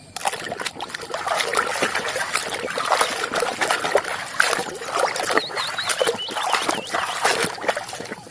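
Water splashing and trickling while a muddy toy vehicle is washed by hand, with frequent small knocks of the toy being handled.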